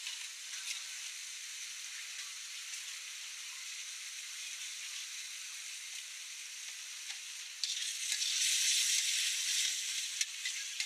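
Beef stir-frying in a hot wok, a steady sizzle that flares suddenly louder about three quarters of the way through. Near the end, a few sharp clicks of the metal spatula against the wok.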